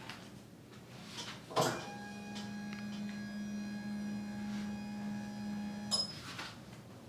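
A small electric motor hums steadily for about four seconds. It switches on with a click a second and a half in and off with a click near the end.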